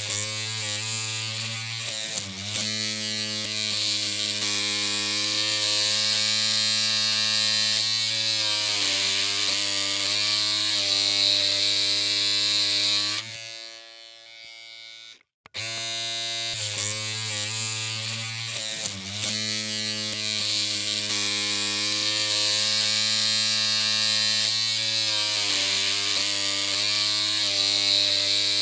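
Electric hair clippers running with a steady buzzing hum. The sound cuts out about halfway through for a couple of seconds, then the clippers run again.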